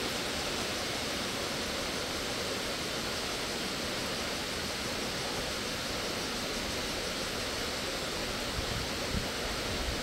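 Steady, even rush of flowing stream water, with a few soft low bumps near the end.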